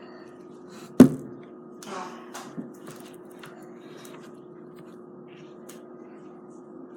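Slime being handled by hand: a sharp pop about a second in, then a few soft squelches and small clicks, after which only a steady low hum remains.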